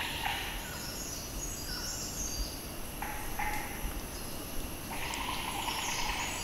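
Forest ambience: birds chirping in short runs, with a buzzing, insect-like chorus that starts and stops every second or so over a low background hiss.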